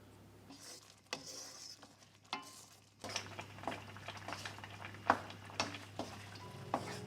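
Kitchen work: a utensil clicking and knocking against cookware a dozen or so times, with a short hiss about a second in.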